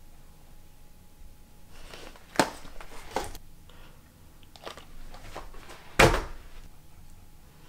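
A few separate knocks and thuds from objects being handled or set down, the loudest about six seconds in.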